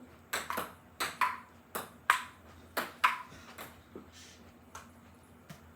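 A table tennis rally played with a cat toy ball: about nine quick sharp knocks of paddles striking the ball and the ball bouncing on the table, then a few fainter bounces as the rally dies out.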